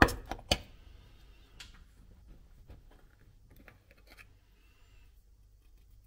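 Press-on metal lid of a golden syrup tin being prised off with a spoon: a few sharp metallic clicks right at the start, then faint scattered clicks and taps.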